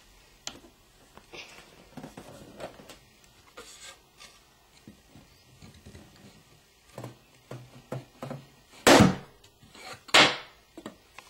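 Balloon pressed down onto three upright nails by a wooden board, with a few soft wooden knocks, then a loud bang as it bursts about nine seconds in. A second loud knock follows about a second later.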